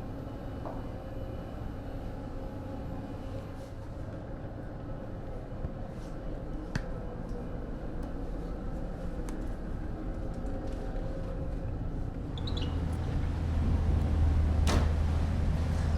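Steady low drone of a ferry's engines heard on board, with a few light clicks and taps; about twelve seconds in a deeper rumble comes in and it gets louder.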